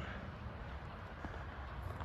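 Quiet outdoor background: a low steady rumble with a few faint ticks.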